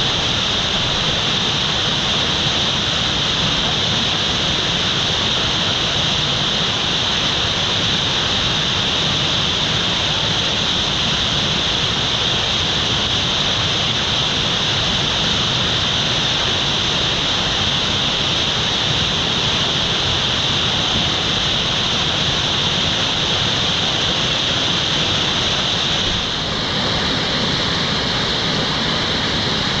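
Whitewater rushing steadily through a river rapid and play hole, a constant churning hiss of water. The sound shifts slightly near the end.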